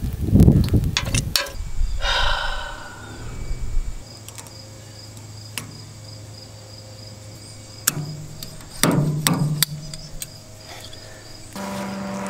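Hand tools working at a torn gearbox seal on a rotary cutter's output shaft: knocks, scraping and sharp metal clicks as the seal remains are pried and gripped out, with a brief metallic ring about two seconds in and a louder flurry of knocks near the end. An insect chirps in a steady pulsing rhythm behind it.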